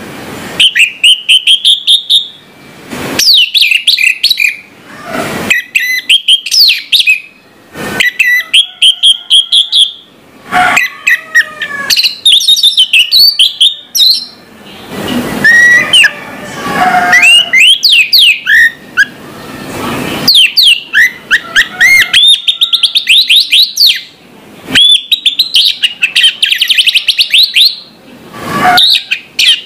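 Orange-headed thrush singing loudly: rapid, varied phrases of sweeping chirps and whistles, each a second or two long and broken by short pauses, with a fast trill of notes near the end.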